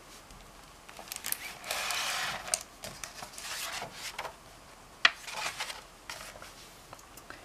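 Hardcover picture book being opened and its pages turned by hand: about three papery swishes, with a few light taps and clicks.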